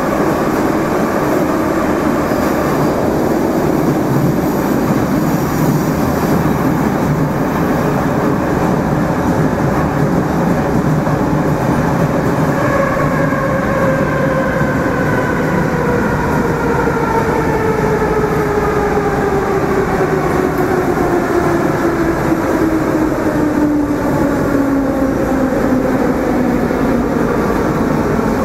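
Moscow metro train heard from inside the car, running through a tunnel with a loud, steady rumble of wheels and running gear. From about midway a whine falls steadily in pitch as the train slows down.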